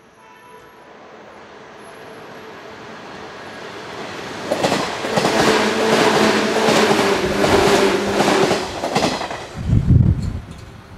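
A JR West 117 series electric multiple unit passing without stopping. Its rumble grows from faint to loud over the first four seconds. Then come a steady hum and a repeated clickety-clack of wheels over rail joints, and a short low rumble near the end as it goes by.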